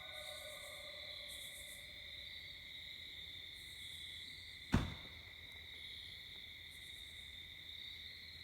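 Night-time insect chorus, crickets trilling steadily in two high tones. A faint pitched call trails away in the first second or so. A single sharp knock comes about five seconds in.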